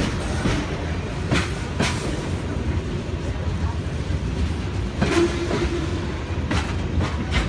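Freight train of boxcars and covered hoppers rolling past: a steady low rumble of the cars, with a few sharp wheel clicks over the rail joints at uneven intervals.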